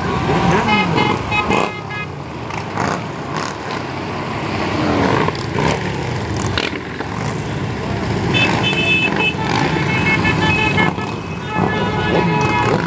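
A procession of cruiser and touring motorcycles passing one after another, engines running and revving. Horns toot near the start, about eight and a half seconds in, and again near the end.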